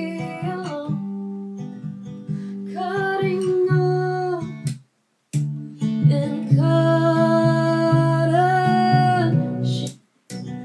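A song in progress, with acoustic guitar and a voice singing, played back through studio monitors and picked up by a camera microphone in the room. The music drops out briefly about five seconds in and again near the end.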